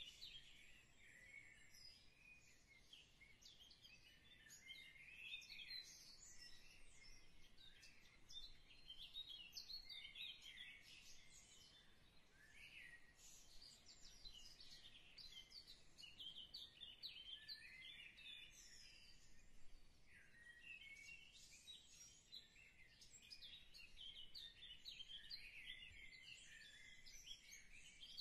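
Faint birdsong: a continuous chatter of short, high chirps and twitters.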